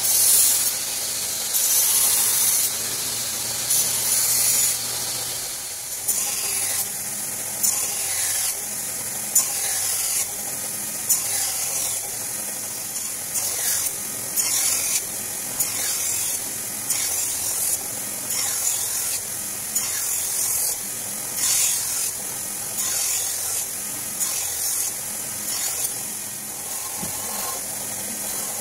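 Belt grinder running while a Böhler N695 steel knife blade is ground on the belt. The hissing grind swells and drops in repeated short passes, roughly one a second.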